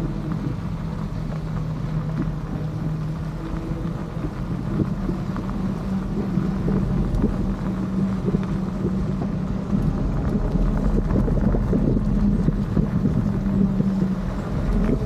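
Riding an electric bike: wind on the microphone over a steady low hum of motor and tyres.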